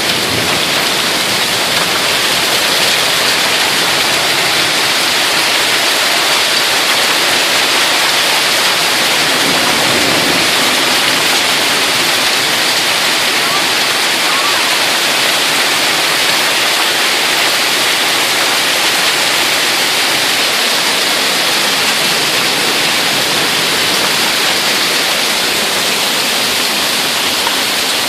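Heavy rain pouring down in a severe thunderstorm: a dense, even hiss that holds steady throughout.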